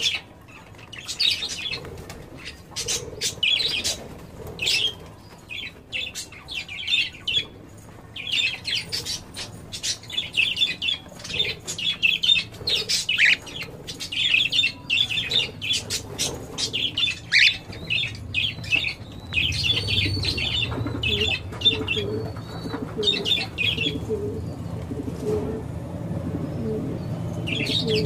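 Small parrots, Fischer's lovebirds and a cockatiel, giving many quick, high chirps mixed with short clicks. A lower, evenly repeating sound joins about two-thirds of the way through and carries on.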